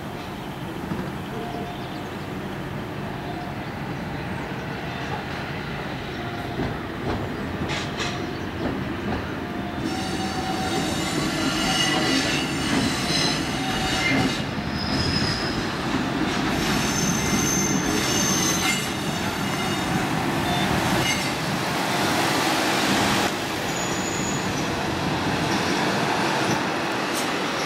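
Train hauled by an ED76 electric locomotive rolling past on the rails, its steady rumble growing louder about ten seconds in. Its wheels squeal in several high thin tones on and off from then on.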